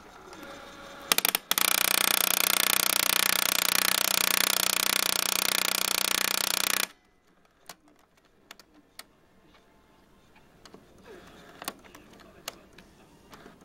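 Canon MP500 inkjet all-in-one printer making an abnormal noise: a few clicks, then a loud, even mechanical grinding for about five seconds that cuts off suddenly, followed by faint ticks. The owner takes it to happen during the print-head cleaning cycle.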